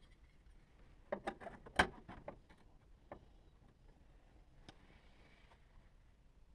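Light clicks and taps of a small sheet-metal repair piece being handled and set into place against a car's steel boot floor: a quick run of clicks about a second in, the loudest just before two seconds, then two single taps later.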